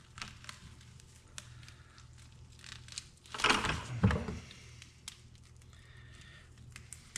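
Soft tearing and rustling of a dove carcass being pulled apart by hand as the breast meat is separated, with scattered small clicks and one louder rustle about three and a half seconds in.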